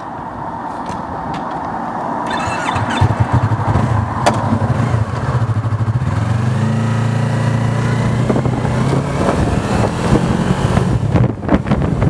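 Motorcycle engine heard close up from the bike, running and then pulling away, its pitch climbing gently as it accelerates. Wind buffets the microphone near the end.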